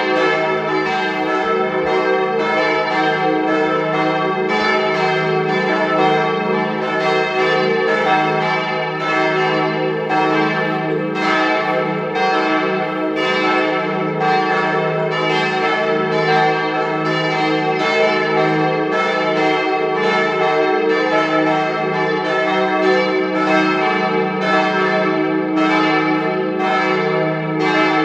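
Partial peal of several swinging church bells ringing together: overlapping strikes in an uneven rhythm over low, long-sustained tones.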